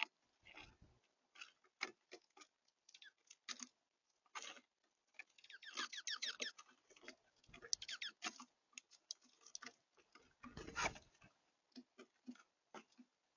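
Small birds at a feeder pecking and cracking seeds: faint, irregular taps and clicks, with a quick run of chirps about six seconds in and a louder rustle around eleven seconds in.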